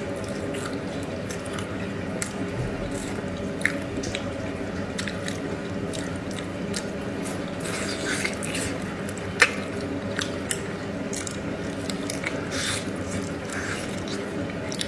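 Close-up wet eating sounds of someone chewing braised pig's trotter: scattered lip smacks and sticky clicks, with one sharper click about nine seconds in, over a steady low hum.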